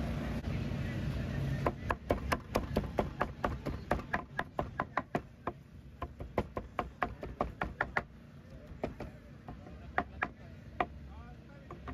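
Cleaver chopping braised pork skin on a plastic cutting board: rapid chops, about four or five a second, starting about two seconds in, thinning to a few scattered strokes near the end.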